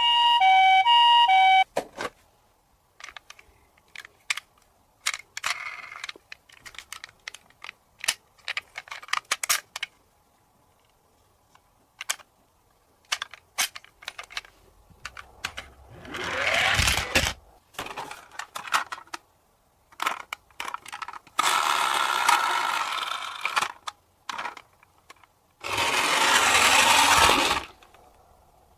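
Toy cars' electronic tones beeping briefly, then plastic toys clicking and clattering as they are handled, with three longer bursts of rattling noise in the second half.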